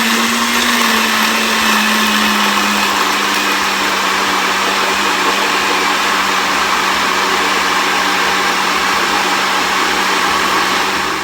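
Electric blender running with a smoothie jar, blending spinach, bananas and milk into a smoothie: a loud, steady whirr whose motor tone settles slightly lower in pitch in the first few seconds, then stops abruptly at the end.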